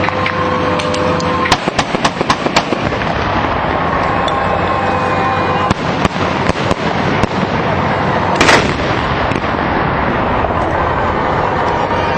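Fireworks salute: runs of sharp crackling pops, with one louder bang about eight seconds in, over a steady din.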